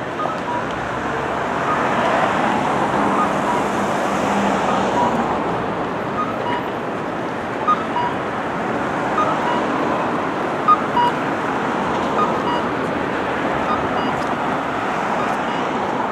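Steady city street traffic noise, with faint short high beeps scattered through it.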